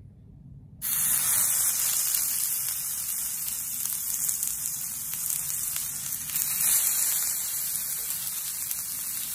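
Oil sizzling on a hot ridged grill pan under skewers of marinated chicken tikka, onion and capsicum. The sizzle starts suddenly about a second in and then holds steady.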